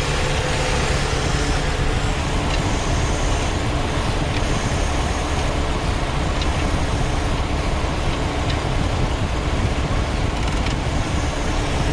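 2003 Chevy Cavalier's engine running steadily with the transmission being shifted, a few faint clicks over the steady noise.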